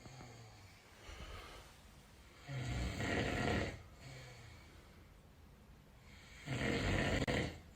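A man snoring in his sleep: two loud snores about four seconds apart, each lasting about a second, with quieter breaths between them.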